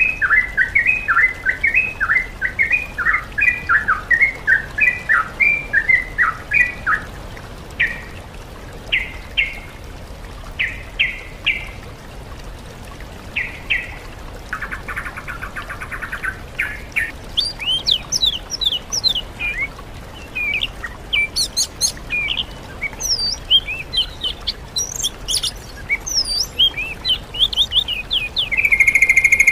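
Recorded songbird song from a sooty-headed bulbul master track mixed with oriental magpie-robin and greater green leafbird song. It opens with a run of rapid chattering notes for about seven seconds, then scattered short notes and a harsh rattle around the middle. The second half has faster, higher sweeping whistles, ending on a loud held note.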